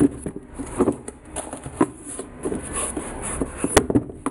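A foam sneaker insole being pulled out of a knit shoe: irregular rustling, scraping and light knocks of fabric, foam and cardboard box, with a sharp click near the end.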